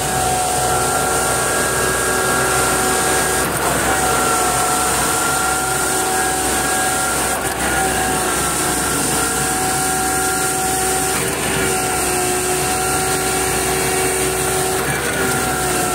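Heavy construction machine running steadily: an engine drone with a steady whine on top that shifts slightly in pitch a few times.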